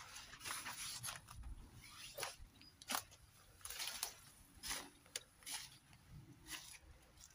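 Footsteps crunching and rustling through dry dead vegetation, brambles and leaf litter, in irregular short crackles.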